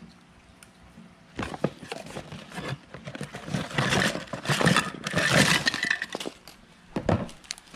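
Cardboard Lego box being opened and its plastic bags of small Lego pieces crinkling and clinking as they are shaken out, in a dense crackly run for about four seconds, with a short burst again near the end.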